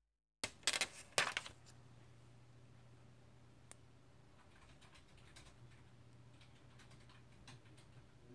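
A cluster of sharp clicks and taps about half a second in as a tempered glass screen protector is set down onto a phone's screen, then scattered faint clicks over a low steady hum as fingertips press the glass along its edges.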